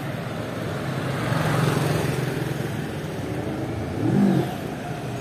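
Street traffic: cars and a motor scooter driving slowly past at close range, their engines running over tyre hiss, one swelling louder about a second and a half in. About four seconds in comes a brief rise and fall in pitch, the loudest moment.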